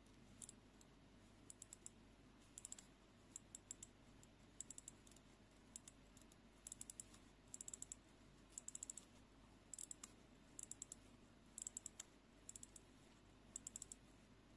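Small 1970s Bel Art mechanical travel clock being wound by its crown: faint, quick ratchet clicks in short bursts about once a second.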